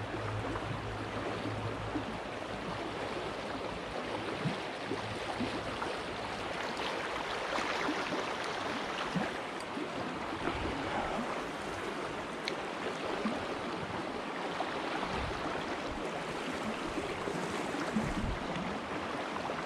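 Shallow stream running steadily over its bed, an even rush of water.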